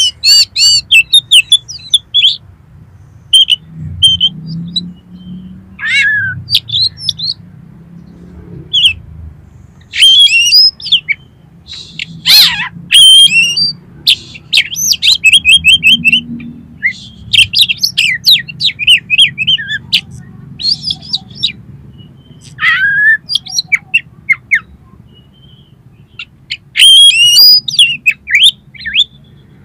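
Oriental magpie-robin singing quick, varied phrases of rising and falling notes, in bursts with short pauses between them.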